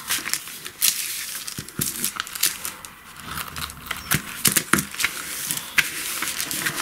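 Masking tape being pulled off its roll and pressed onto paper envelopes, with paper rustling and crackling, a snip of scissors cutting the tape about four seconds in, then hands smoothing the tape down.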